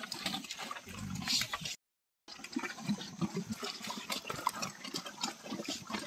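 A crowd of pigs jostling and grunting at a feeding trough while wet slop is tipped in from a bucket, with sloshing and splashing of the liquid feed. The audio drops out completely for about half a second, about two seconds in.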